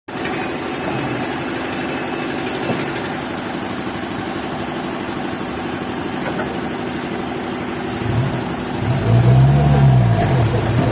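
An engine running steadily, then from about eight seconds in revving up and down in repeated swells about a second long.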